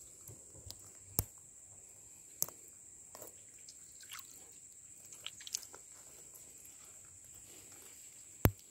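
Faint drips, small splashes and a few sharp clicks as hands work a small fish free from a fishing net at the water's surface, the loudest click near the end. A steady high insect drone, typical of crickets, runs underneath.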